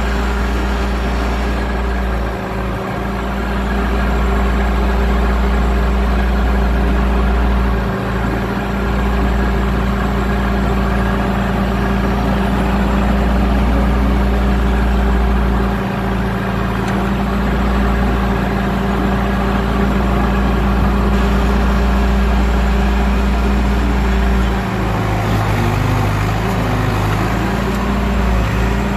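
1973 John Deere 450B crawler dozer's freshly rebuilt diesel engine running steadily while the dozer pushes dirt with its blade, on its first test run after an in-frame overhaul.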